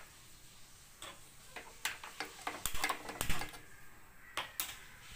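A few light kitchen clicks and taps at irregular intervals, about eight in all, over a faint hiss.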